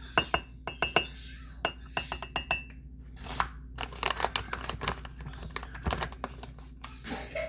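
A metal teaspoon clinks against dishware while measuring out a supplement. The first few clinks ring briefly, and quicker taps and scrapes follow in the second half.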